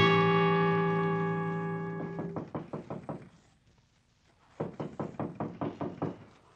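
A music bridge ends on a held chord that fades away over about two and a half seconds. Then come quick, evenly spaced knocks, about six a second, in two runs with a pause of about a second between them: a radio-drama sound effect.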